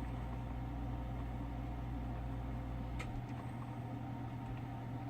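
Single-serve coffee maker heating its water before brewing: a steady low electrical hum, with a click about three seconds in as the deepest part of the hum stops.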